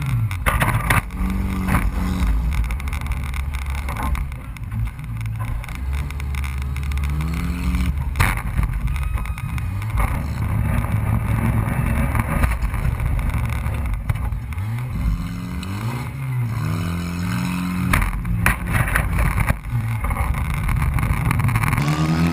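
Demolition derby cars' engines revving up and falling back again and again as they drive and ram each other. A few sharp crashes of car bodies colliding come through, about a third of the way in and twice in quick succession later on.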